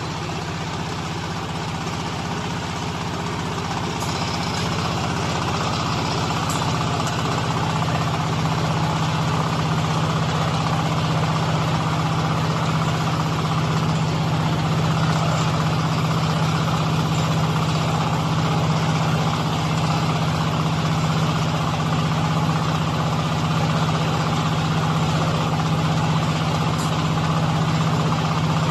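Silage baler machine running steadily: a constant machine hum with a strong low drone, growing a little louder over the first several seconds.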